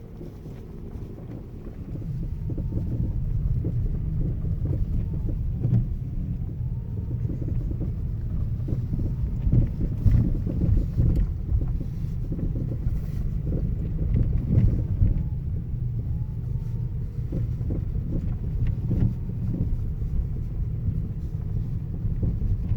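Geely Atlas on the move, with steady low road rumble and irregular knocks from the front suspension, the suspension knock the owner is trying to record.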